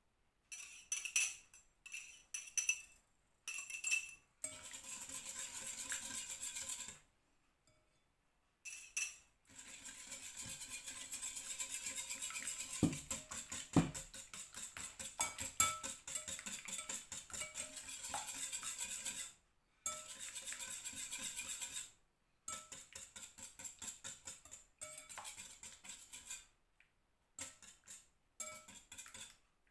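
Wire whisk beating eggs and melted butter in a glass mixing bowl: fast clinking of the wires against the glass with a faint ringing, in runs broken by several short pauses.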